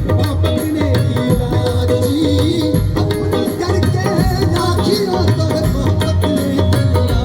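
Live Punjabi folk music from a stage band: a wavering melody line over steady drum beats, played loudly through the concert's sound system.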